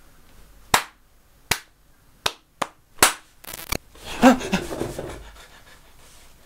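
About six sharp smacks in quick succession over roughly three seconds, then a man's short wordless vocal sound with breath about four seconds in.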